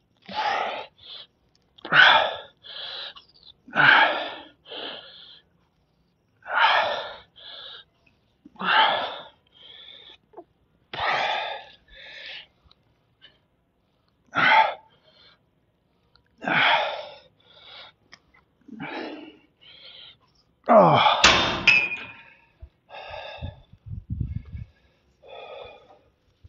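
A man breathing hard through a set of cable pulls: a sharp exhale about every two seconds, each followed by a shorter intake of breath. About 21 seconds in comes a louder breath with a thump.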